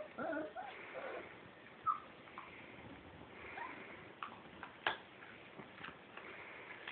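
Saluki puppies about four weeks old moving about on a padded dog bed: scattered small clicks and taps, with a short high squeak about two seconds in and a sharper click a little before five seconds.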